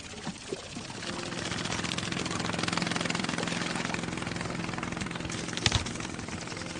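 Motorboat engine running with a rapid steady chug, swelling louder over the first few seconds and then slowly fading, with one brief knock late on.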